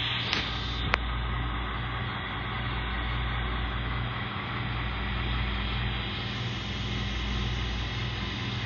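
Model Burlington stainless-steel E-unit diesel locomotive running along layout track, giving a steady low hum, with a single click about a second in.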